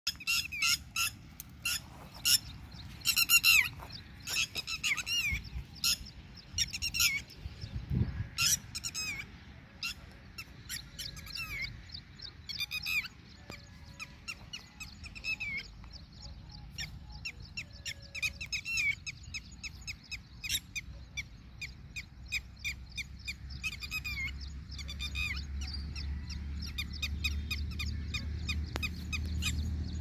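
Red-wattled lapwings giving volleys of sharp, high, repeated alarm calls. They are mobbing dogs that have come close to their eggs.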